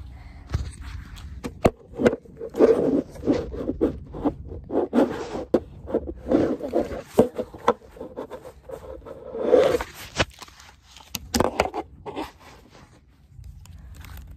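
Shirt fabric rubbing and scraping over a phone's microphone, with knocks from the phone being handled, in irregular bursts. It dies down near the end.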